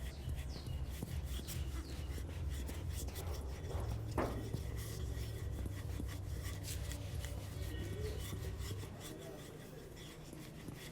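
Massage hands rubbing, a scratchy friction sound with many small crackles throughout.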